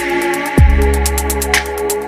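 Electronic dance music: a deep bass hit that sweeps down in pitch about half a second in, under held synth chords and rapid ticking hi-hats.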